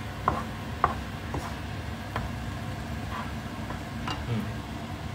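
Stirring in a pan of frying sambal: about half a dozen light clicks of a utensil against the pan over a steady low sizzle.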